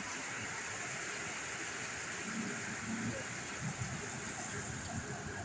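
Steady rain falling, an even hiss. Faint murmurs in the background.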